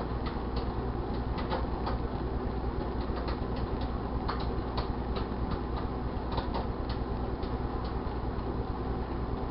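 1978 GE Dual Wave microwave oven running with a steady low hum, while popcorn kernels inside pop in scattered, irregular sharp pops, about a dozen: the popcorn is beginning to pop.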